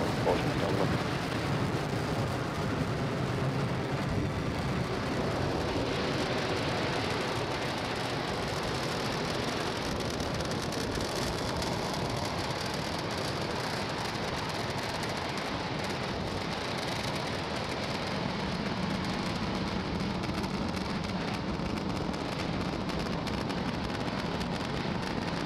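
Falcon 9 first stage's nine Merlin engines firing during ascent: a steady, even rush of rocket noise that holds without a break.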